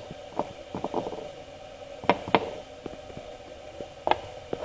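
Light clicks and taps as a plastic glue-bottle nozzle touches and scrapes a small piece of steel angle iron while glue is spread on it. The two sharpest come about a quarter second apart about two seconds in, with a faint steady hum beneath.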